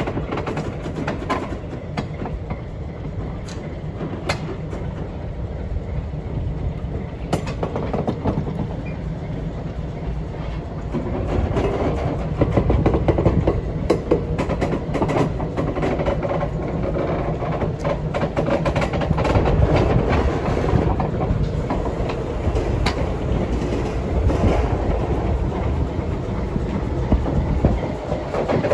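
Steel-wheeled passenger/baggage car rolling slowly along track, its wheels clicking and clunking irregularly over the rails, while a diesel switcher locomotive's engine runs steadily underneath. The sound grows louder about eleven seconds in.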